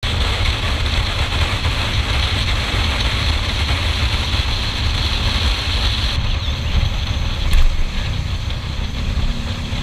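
Riding noise of a KTM Duke 390 motorcycle at road speed: a steady rush of wind on the microphone over the running single-cylinder engine. The hiss eases a little about six seconds in.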